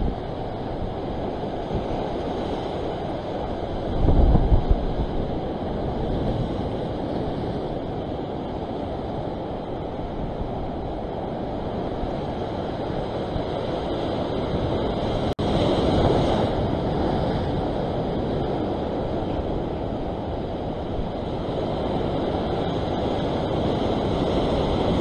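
Ocean surf washing and breaking, with wind buffeting the microphone. There is a louder low buffet about four seconds in, and the surf swells up again about sixteen seconds in and near the end.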